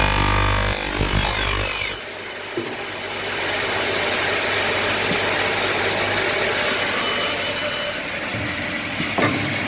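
FASTER 55 twin-head aluminium cutting saw running and its blades cutting through a Xingfa aluminium profile. The sound changes about two seconds in and again near the end, with a sharp knock shortly before the end.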